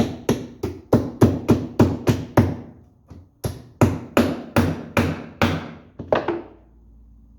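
Fast, steady hammer blows on metal, about three a second, each ringing briefly, with a short pause partway through. The blows fall on a rusted, seized ball-joint pivot on a Ford 7610 tractor's remote hydraulic assembly to free it.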